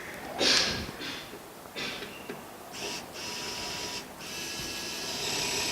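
Small battery-powered automatic screwdriver for phone repair, its motor whirring with a high, steady whine in runs broken by brief stops, after a few short handling clicks.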